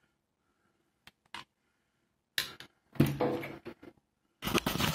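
Handling noise: two light clicks, then irregular rustling and knocking as tools and cables on a cluttered workbench are moved by hand, with louder bursts about three seconds in and again near the end.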